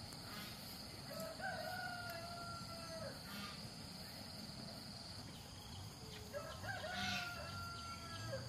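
A rooster crowing twice, two long drawn-out calls about five seconds apart.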